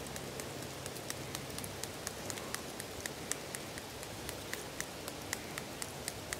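Meat sizzling in a cast-iron skillet over a campfire: a soft steady hiss with irregular sharp pops and crackles, several a second.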